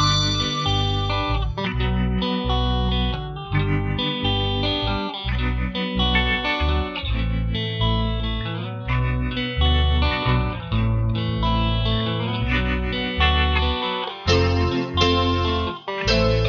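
Background music: an electric guitar track with a steady beat and bass.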